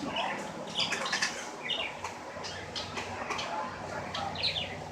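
A person chewing and eating food up close, with irregular short wet clicks and crackles from the mouth.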